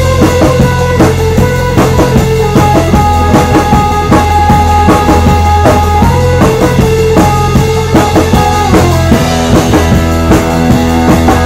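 Live rock band playing: a drum kit keeping a steady beat with snare, bass drum and cymbals, under electric bass, electric guitar and a Hammond organ's long held notes, which change pitch about nine seconds in.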